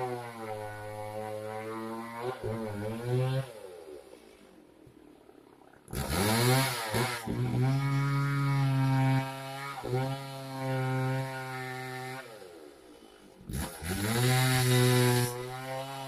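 Two-stroke chainsaw engine idling and being revved: the pitch climbs sharply to full throttle about six seconds in and again near the end, with a quieter, lower idle and smaller throttle blips in between.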